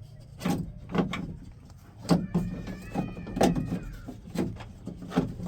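Irregular sharp knocks and clicks of hands and a tool working a door latch loose inside a pickup door, about one or two a second. About two seconds in, a thin high tone lasts for about two seconds.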